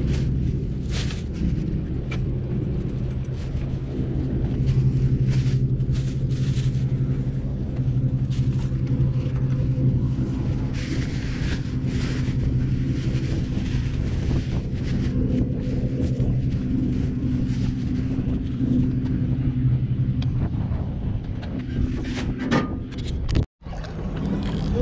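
Crackling rustles of a plastic bag being handled as tangled fishing line and litter are stuffed into it, over a steady low drone.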